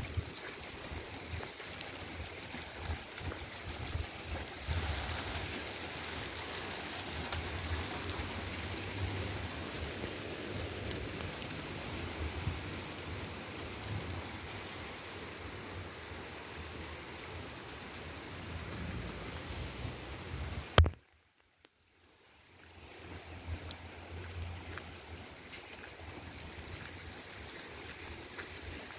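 Hail and rain falling steadily on pavement and grass: a dense hiss with scattered sharp ticks of hailstones striking. About twenty seconds in there is a sharp knock, then the sound drops out for about a second and a half before fading back in.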